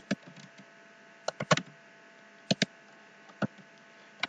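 Computer keyboard keys pressed slowly, a few scattered clicks, often in pairs, with pauses of about a second between them.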